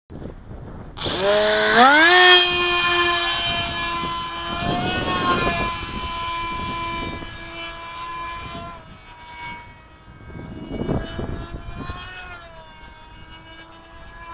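Electric RC plane's Blue Wonder 3000kv brushless motor and small propeller spooling up with a sharply rising whine about a second in, then running at a steady high-pitched whine that slowly fades as the plane flies off, with small bends in pitch. Gusts of wind rush on the microphone around five and eleven seconds in.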